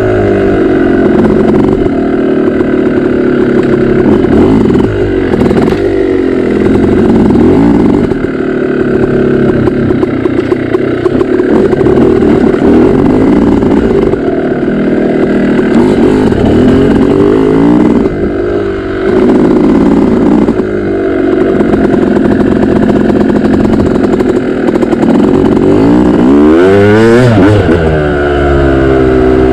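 Dirt bike engine heard close from on board, its pitch rising and falling as the throttle is worked along a trail, with short lifts off the throttle. Near the end it revs up sharply and drops back.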